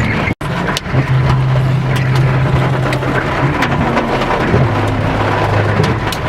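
Hail and heavy rain pelting a car, a steady hiss with many scattered sharp knocks of individual hailstones, over the steady low hum of the car's idling engine. The sound briefly cuts out about half a second in.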